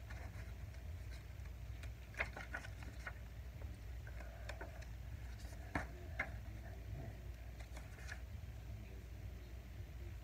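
Quiet room tone with a steady low hum, broken by a handful of soft clicks and knocks from handling nearby.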